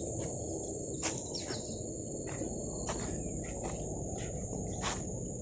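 Crickets keep up a steady high-pitched drone, with a few short ticks scattered through it over a low rustling noise.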